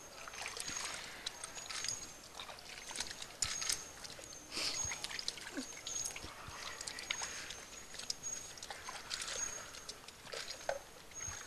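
Hands being washed in a plastic basin of soapy water: irregular small splashes, sloshing and dripping as the hands rub and dip.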